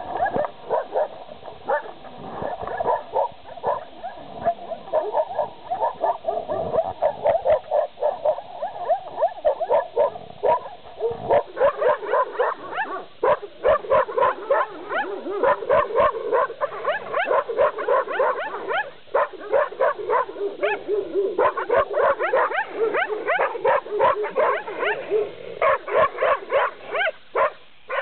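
Several dogs barking, the barks coming faster and louder from about eleven seconds in.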